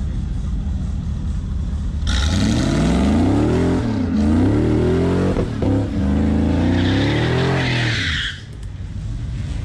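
Pickup truck's engine launching hard about two seconds in and accelerating down the drag strip, revs climbing, dropping at two gear changes, then climbing again before it fades away about six seconds later.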